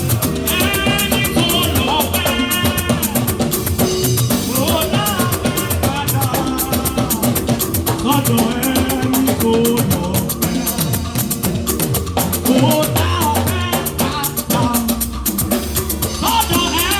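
Live church praise music with a steady drum-kit and percussion beat and melody lines over it.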